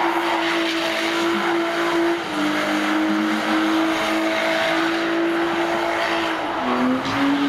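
BMW E36 325 Compact's straight-six held at high revs in a burnout, with its rear tyres spinning and screeching. The engine note is steady, dipping briefly about two seconds in and again near the end before climbing back.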